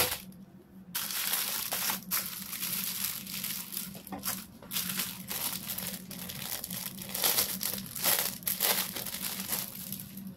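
Clear plastic packaging bags crinkling and rustling in irregular bursts as hands handle them and pull a silicone pop-it phone case out. It starts about a second in.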